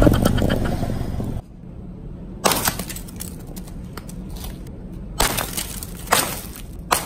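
Things cracking and crunching as they are crushed under a car's tyre. A loud crackling crunch at the start dies away over about a second and a half, then sharp cracks come singly, about three seconds apart and then a second apart, over a low steady rumble.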